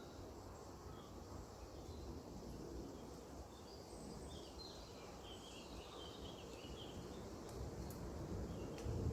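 Outdoor ambience with a low steady rumble, an even high hum of insects, and a few short bird chirps in the middle.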